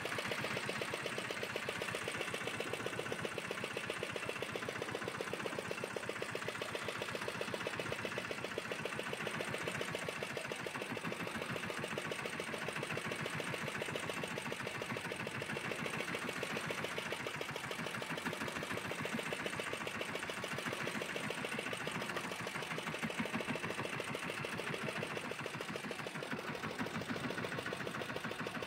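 Small fishing boat's engine running steadily with a fast, even rhythm.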